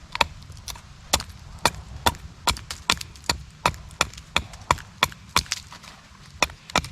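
Becker BK2 fixed-blade knife chopping into a hardwood stick, a steady run of sharp knocks about two to three a second as the blade trims wood from the baton's grip.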